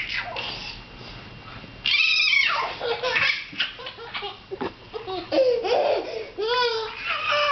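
A baby laughing and squealing in several high, gliding bursts, starting about two seconds in.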